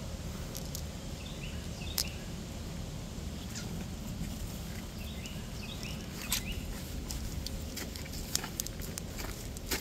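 A bird calling in short high chirps, two groups of three or four about four seconds apart, over a steady low rumble. Scattered clicks and rustles of footsteps on a dirt trail come more often in the second half.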